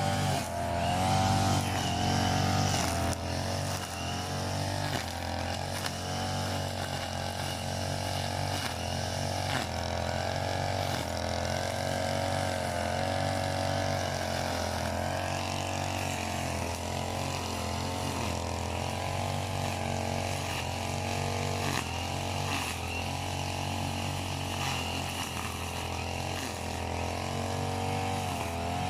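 Petrol grass cutter (brush cutter) engine running continuously, its pitch wavering slightly up and down.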